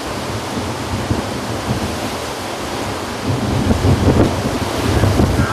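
Heavy storm surf breaking against a seawall, with strong wind buffeting the microphone; the low buffeting grows heavier about three seconds in.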